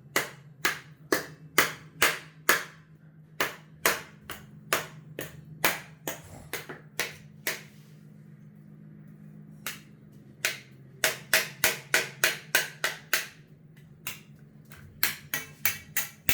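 Knife chopping potatoes: a run of sharp, separate chops about two a second, stopping for about three seconds near the middle, then resuming.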